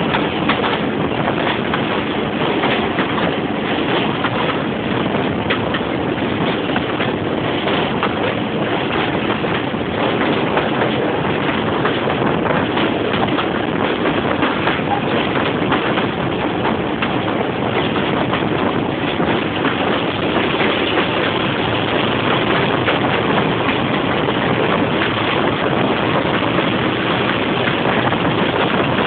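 British Rail Class 25 diesel locomotive working under power, its Sulzer six-cylinder engine a steady loud din mixed with the train running on the track. Heard from an open carriage window, with wind rushing over the microphone.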